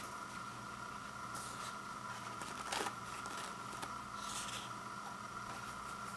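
Angel Soft 2-ply toilet paper being unrolled from a large roll by hand: soft paper rustles, with a brief sharp noise about three seconds in that is the loudest sound. A steady background hum runs underneath.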